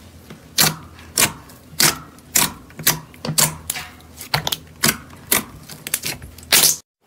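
Glossy slime pressed and poked by fingers, giving sharp crackling pops of trapped air about twice a second, a dozen or so in all, then cutting off suddenly near the end.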